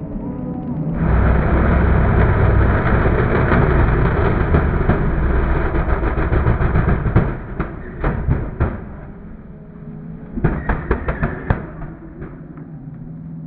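Mud bog truck's engine running hard at full throttle through a mud pit, then a burst of sharp cracks and bangs as it comes off the power, leaving a lower engine rumble near the end.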